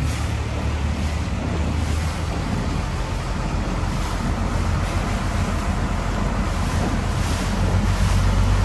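Longtail boat engine running at a steady low drone while under way, with wind and water rushing past. It grows slightly louder near the end.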